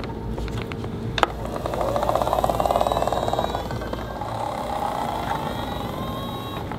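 Remote-control toy pickup truck driving: a click about a second in, then its small motor whirring with a fast buzzing pulse, loudest a couple of seconds in and easing off near the end.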